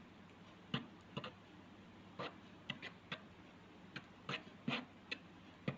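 Light, irregular clicks and taps of a mixing utensil against a bowl as white and clear glue are stirred together, about a dozen over a few seconds.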